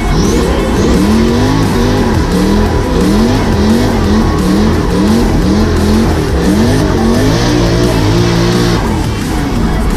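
Drift car's engine revving hard over and over with tyres squealing, heard from inside the cabin, with music mixed over it.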